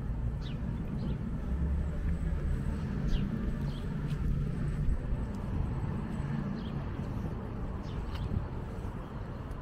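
City street ambience: a steady low rumble of traffic, with several short, falling bird chirps scattered through it.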